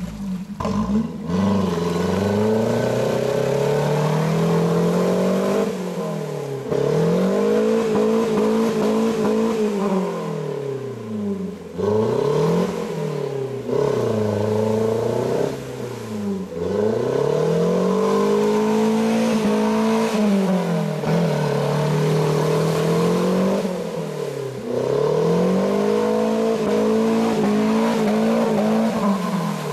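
Suzuki Grand Vitara 4x4 engine revved hard and repeatedly, the pitch climbing, holding high, then dropping and rising again every few seconds. It is the sound of the vehicle working its wheels through deep, sticky mud.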